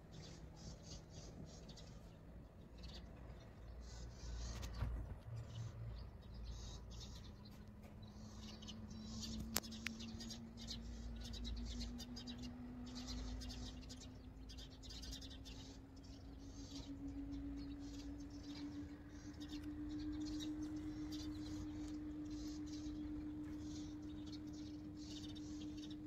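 Samsung WA70BG4545BD top-load washing machine's digital inverter motor running as the drum spins up: a faint hum that rises slowly in pitch and then holds steady, over a low rumble and irregular swishing of the wet load.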